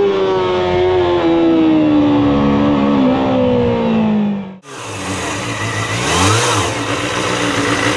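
Kawasaki ZXR250's 250 cc inline-four engine, its revs falling steadily from high rpm with the pitch sliding down for about four and a half seconds. After a sudden cut the same engine is idling, with one short blip of the throttle a little past the middle.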